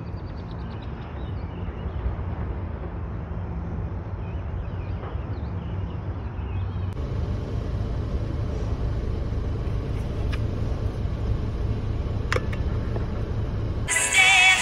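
A steady low rumble of outdoor ambience changes character at a cut about halfway through into a similar rumble inside a car, with two sharp clicks. Music starts near the end.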